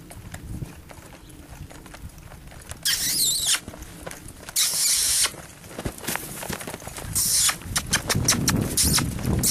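Horse trotting on a dirt round-pen floor, its hoofbeats sounding as dull knocks. Short loud bursts of high hiss and squeaking come over them, the first about three seconds in and a few more later.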